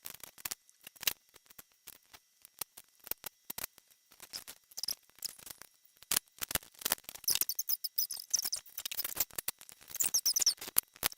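Rubik's cubes being turned by hand: rapid, irregular plastic clicks and clacks, with a few short high squeaks.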